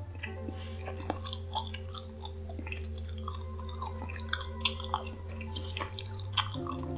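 Gum chewed close to the microphone: irregular wet smacks and clicks of the mouth, over a held chord of soft background music that changes near the end.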